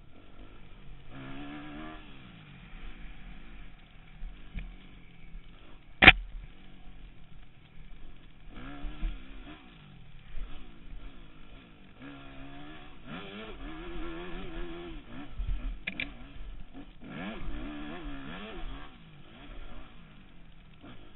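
Dirt bike engine revving up and down again and again as the throttle is worked on a downhill trail, heard from the rider's helmet. A single sharp knock about six seconds in is the loudest sound.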